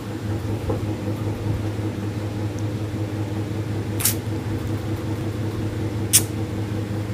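A steady low mechanical hum, like a motor or fan running, with two sharp clicks about four and six seconds in.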